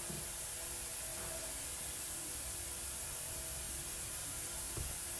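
Steady high background hiss, with a few faint soft knocks from hands handling filo pastry and filling on a countertop.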